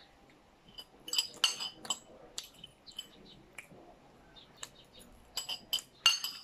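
A metal fork clinking and scraping against a plate while food is scooped up: a cluster of sharp clinks about a second in, single taps between, and another cluster near the end.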